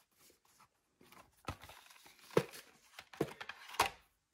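Packing paper crinkling and cardboard rustling as a hand digs into a cardboard shipping case, with four sharp clicks or knocks among the rustling.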